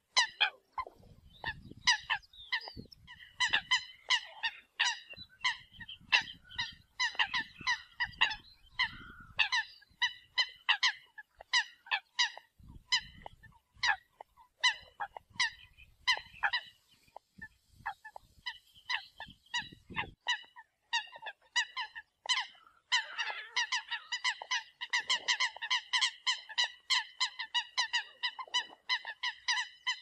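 Eurasian coots calling: many short calls in quick succession from several birds, overlapping and growing denser about three-quarters of the way through.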